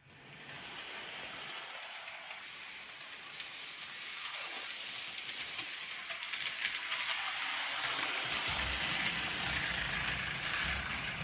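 HO scale model Gordon locomotive pulling an express coach along the layout track: the electric motor whirs and the wheels run and click over the rails. It gets louder and rumbles more from about eight seconds in.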